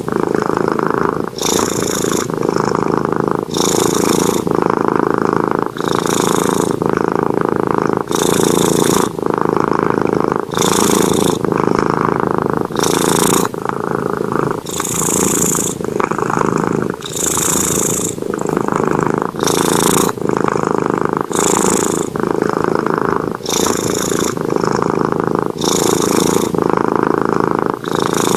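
Sleeping domestic cat snoring: a continuous rumble that swells and eases with each breath, about one breath every two seconds, with a soft airy hiss on each breath.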